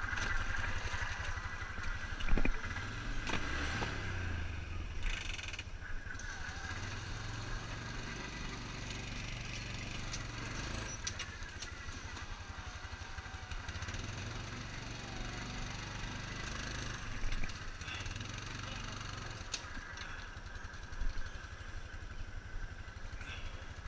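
Yamaha Rhino side-by-side's single-cylinder engine running, swelling under throttle twice as it is driven in reverse to back out of a mud hole. There are a few knocks and clatters from the machine.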